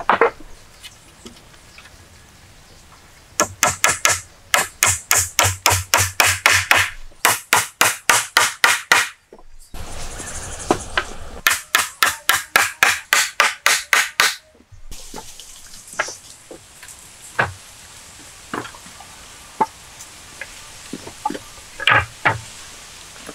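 A blade hacking at the end of a wooden pole in three rapid runs of chops, about four strokes a second. After that come scattered lighter knocks of wooden poles being set down, with a louder double knock near the end.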